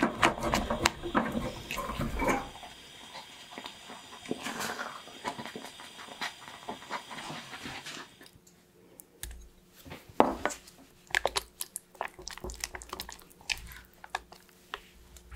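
Silicone spatula stirring and scraping thick, sticky choux paste in an enamel saucepan: irregular wet squelches and slaps, densest in the first couple of seconds, over a faint steady hiss that stops about eight seconds in; after that the stirring goes on as separate softer slaps and clicks.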